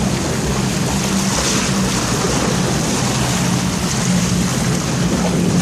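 A boat's engine hums steadily and low under loud, rushing water and wind noise on the water.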